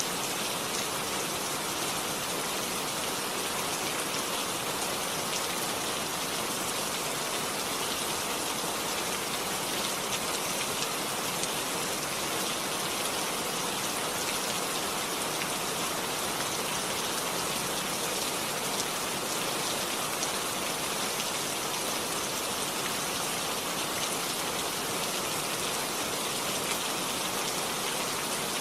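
Steady rainfall, drops pattering on a surface.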